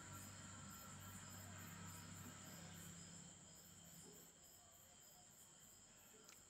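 Near silence: faint room tone with a low hum that fades out about four seconds in, and faint insect chirping repeating about three times a second.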